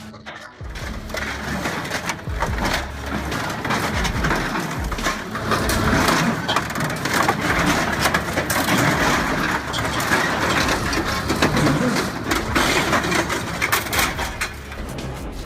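Industrial shredder crushing and tearing material, a dense, continuous crackling and crunching of many small breaks that starts under a second in and runs on steadily.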